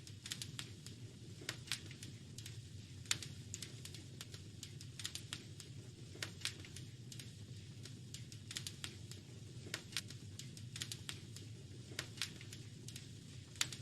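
Wood fire crackling in a fireplace: irregular sharp pops and snaps, a few louder ones, over a steady low rumble of the flames.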